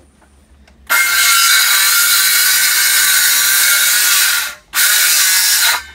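Loud power saw cutting through a wooden board: it starts about a second in, runs steadily for about three and a half seconds, stops briefly, then cuts again for about a second.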